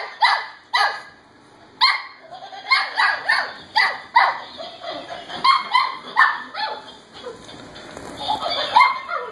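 Short dog yips and barks, repeated in quick runs, with a brief lull about a second in.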